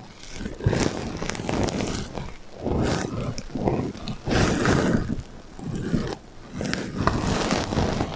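Sequins on a sequin heart pillow being rubbed and scratched by hand, in repeated scratchy strokes about one a second, with an echo effect laid over them.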